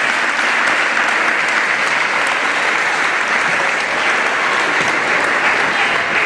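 A large group of people applauding, with sustained, steady clapping.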